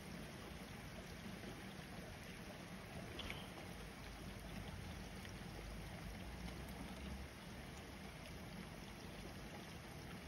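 Rain falling steadily on a wet street, a faint, even hiss with a low rumble underneath.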